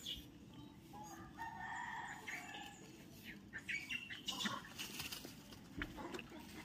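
Animal calls: a drawn-out call lasting about a second, followed by several short, higher calls.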